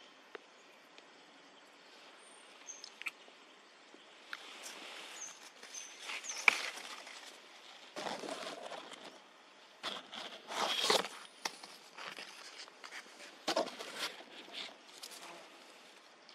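Irregular rustling and crunching in dry grass, leaves and dirt, coming in clusters with a few sharp clicks; the loudest crack is about six and a half seconds in.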